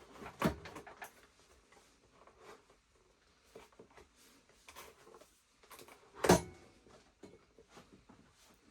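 Scattered clicks and knocks of tools and metal parts being handled while motorcycle carburettors are worked off the bike, with two louder sharp knocks, one about half a second in and one about six seconds in.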